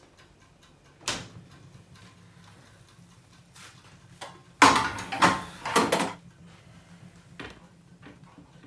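A metal roasting tray is handled at an oven: a sharp click about a second in as the oven door opens, then a loud run of metallic clatter as the tray is set down on the gas hob's pan supports, and a smaller knock near the end. A faint low hum runs underneath.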